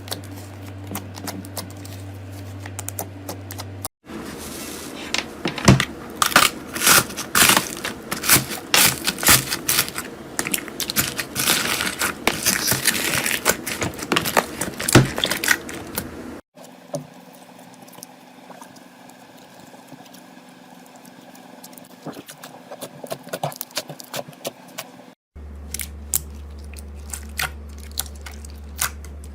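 Slime being squeezed and pressed by hand, giving many small crackles, pops and clicks. The sound comes in several short clips, with the densest, loudest crackling in the second clip, which runs from about 4 to 16 seconds.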